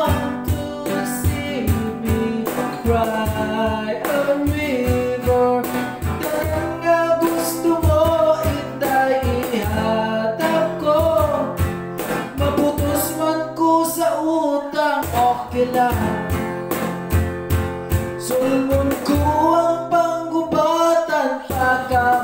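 A man singing, accompanied by a strummed acoustic guitar and a cajón keeping a steady beat.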